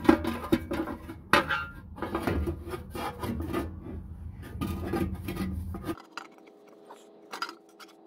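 Stamped sheet-steel flywheel inspection cover scraping, rubbing and clattering against the bell housing as it is worked into place by hand, for about six seconds. The sound then cuts off abruptly to a faint steady hum with a few light ticks.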